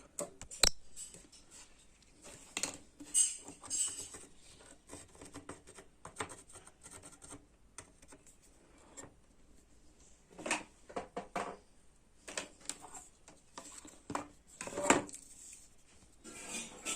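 Irregular clicks, taps and rubbing from hands handling an air-conditioner circuit board and small tools, with a sharp click just under a second in and a louder clatter near the end.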